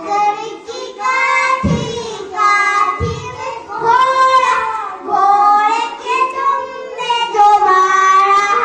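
Young children singing a song, the melody carried in long held notes, with two dull low thumps under it about two and three seconds in.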